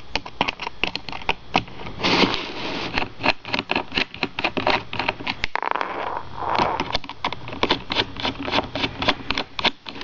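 A small Phillips screwdriver backing the screws out of a laptop hard drive's perforated metal caddy: a run of quick, irregular clicks and ticks, with a short rustle of handling about two seconds in and another around six seconds.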